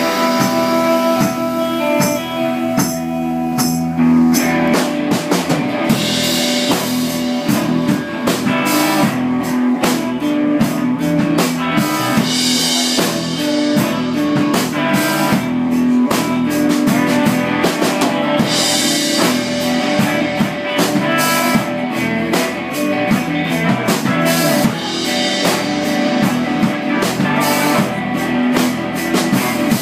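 Live rock-gospel band playing an instrumental stretch: electric guitars over a steady drum kit beat, with no singing.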